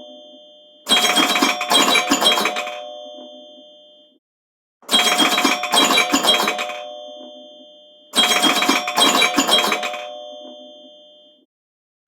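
Alarm ringtone looping: a quick run of bright notes whose tones ring on and fade away, repeated three times about every three and a half seconds.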